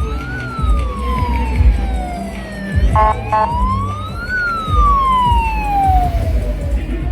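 Emergency-vehicle siren wailing, rising and then falling slowly in pitch about every four seconds, over a low rumble of street traffic. Two short horn beeps sound about three seconds in.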